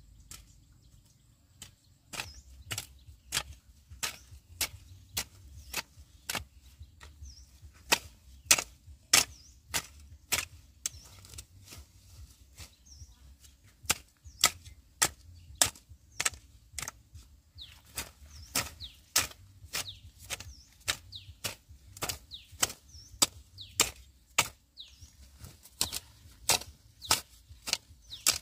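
Irregular run of sharp chopping strikes, about two to three a second with short pauses, starting about two seconds in.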